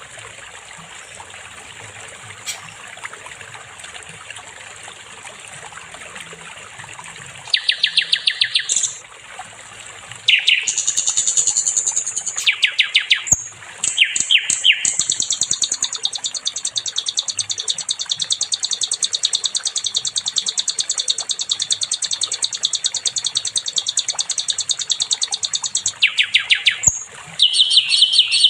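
Sikatan londo flycatcher singing long, very fast runs of repeated high notes, starting about seven seconds in and running almost without a break through the second half. Behind it is a steady trickling-water hiss.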